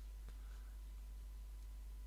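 Steady low electrical hum of the recording setup, with one faint mouse click a fraction of a second in.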